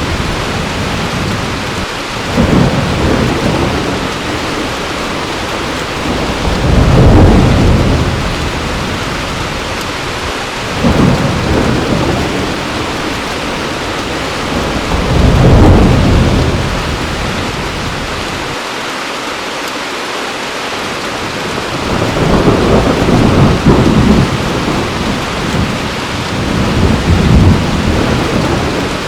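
Heavy rain falling steadily, with rolling thunder rumbling in about six times.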